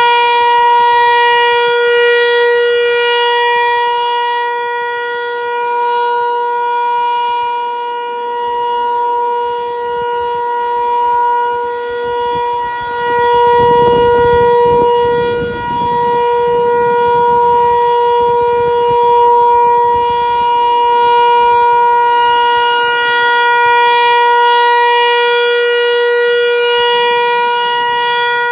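Federal Signal 508 outdoor warning siren sounding a steady, level-pitched tone in its monthly test, swelling and fading in loudness every few seconds. A brief low rush of noise comes about halfway through.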